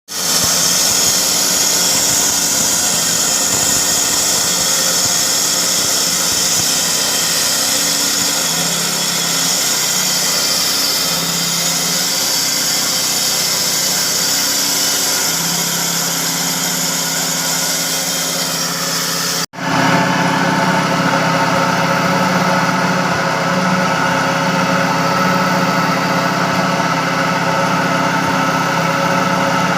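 Steady running of construction machinery. About two-thirds through it cuts abruptly to a different machine with a stronger, lower hum.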